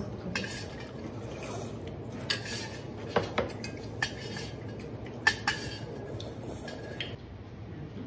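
Metal chopsticks and tableware clinking against a stainless-steel noodle bowl and dishes: a series of sharp, separate clinks, several with a short metallic ring.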